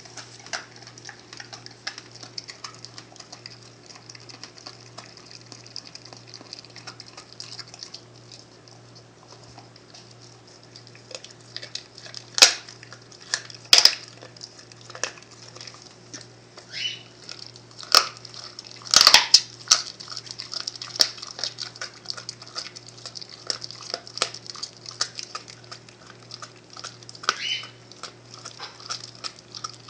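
American Staffordshire Terrier eating a whole raw turkey: wet chewing, licking and tearing at the skin and meat, a run of small smacks and clicks. Several loud sharp snaps come around the middle.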